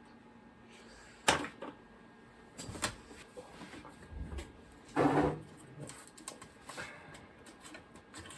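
Hands handling computer parts: a sharp click about a second in, another near three seconds, a longer scraping rustle around five seconds, then a few small ticks.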